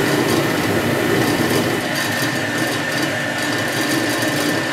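Rinnai REU-158BR FE gas water heater running: a steady rush of burner and exhaust fan with a faint high whine. The heater is staying lit on its first test with a newly replaced micro switch.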